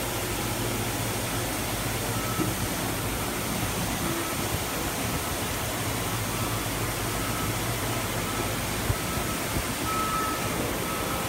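Steady hum and hiss of a factory hall, with a constant low hum and a faint high tone that comes and goes. A couple of small knocks sound, one about nine seconds in.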